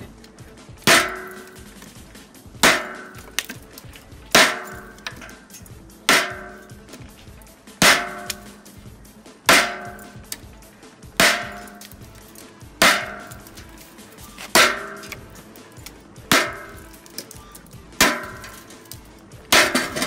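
Zippo 4-in-1 Woodsman hatchet chopping into a pine 2x4, twelve strikes at a steady pace of about one every second and a half to two seconds. Each strike is followed by a short metallic ring, the noise the owner blames on the saw blades stored in the handle. The board breaks off near the end.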